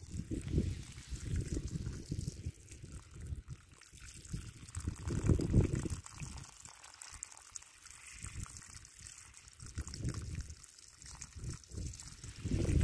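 Water from a siphon hose's outlet pouring steadily onto wet, grassy ground, with irregular low rumbles on the microphone coming and going.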